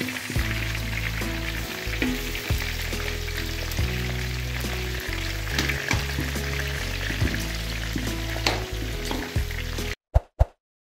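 Pork pieces deep-frying in their own rendered lard: a dense crackling sizzle, with a metal spoon stirring through the pieces. The sizzle cuts off suddenly about ten seconds in, followed by two short pops.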